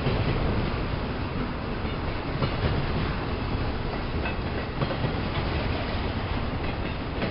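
Double-stack container train's well cars rolling past: steady noise of steel wheels on the rails, with occasional sharp wheel clicks.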